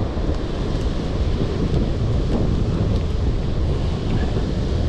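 Steady wind buffeting the microphone, with the wash of surf on the rocks behind it.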